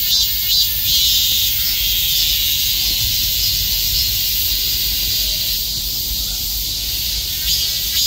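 Many cicadas calling together in a loud, high chorus. It pulses at first, settles into a steady continuous buzz about a second in, and turns back to pulsing near the end.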